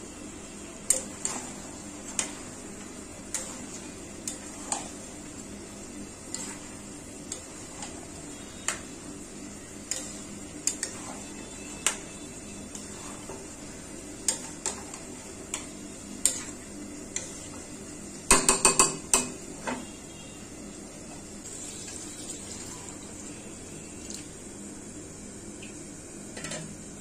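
Metal spatula stirring dal and meat in a stainless steel karai, knocking and scraping against the pan in irregular clinks about once a second over a steady background hiss. About two-thirds of the way through comes a quick flurry of several loud knocks.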